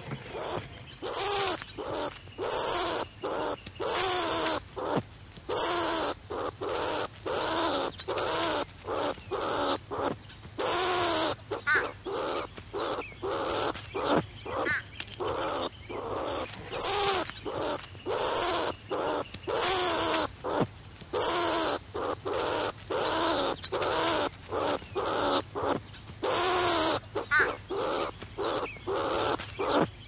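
Striped skunk calls: a long run of short, harsh calls, about two a second, each with a raspy hiss.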